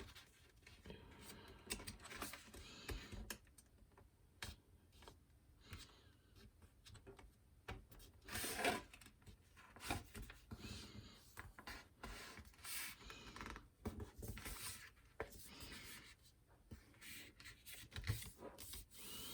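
A sheet of origami paper being folded and creased by hand: quiet, intermittent rustling and rubbing, with a few louder crinkles around the middle.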